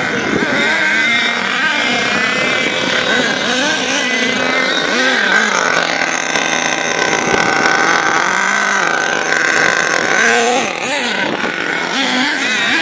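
Several radio-controlled nitro monster trucks' small glow engines buzzing and revving, their pitch rising and falling.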